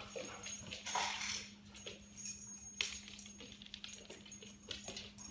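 A dog's metal collar tags jingling and its nails clicking irregularly on a hard floor as it walks.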